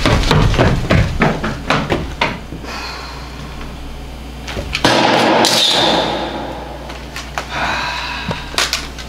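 A quick run of sharp knocks and bangs over the first two seconds or so, then a loud burst of rushing noise about five seconds in that lasts about a second, and a few more knocks near the end.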